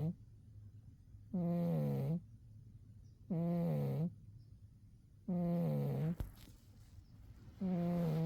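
Cat snoring in deep sleep: four pitched snores, each under a second long, coming about every two seconds.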